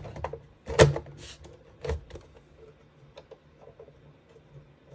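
Case lid of a Dell OptiPlex ultra-small-form-factor PC being set on and slid shut. There is a sharp click, a loud knock about a second in, a short scraping slide, another knock near two seconds, then a few faint ticks.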